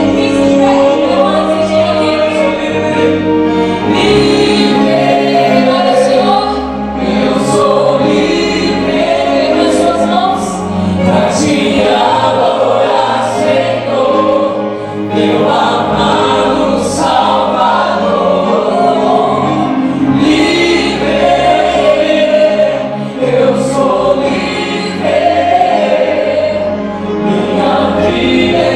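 Choir singing a Christian worship song over instrumental accompaniment, with a steady low backing and occasional cymbal-like strikes.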